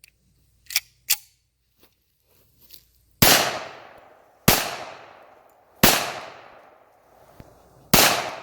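Four pistol shots spaced one to two seconds apart, each followed by a trailing echo, after two light clicks about a second in. The shots are handloaded rounds fired with new primers, cycling normally.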